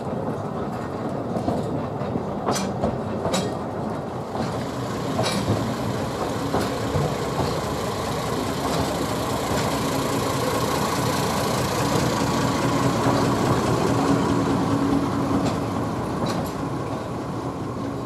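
Narrow-gauge train running along the track: a steady rumble with scattered sharp clicks from the wheels over the rails, and a faint steady whine through the middle stretch.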